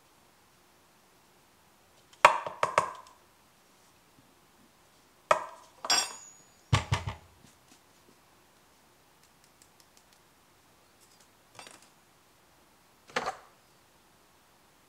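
Espresso prep tools handled on the counter: the portafilter and dosing cup are knocked and set down on a rubber tamping mat, then the coffee is tamped. It comes as clusters of sharp clanks about two seconds in and again from five to seven seconds, with a deeper thud at seven, then two lighter knocks near the end.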